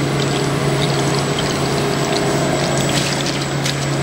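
Lubricating oil overflowing from the end of a turbo bearing housing and running into a plastic tub, over a steady low machine hum.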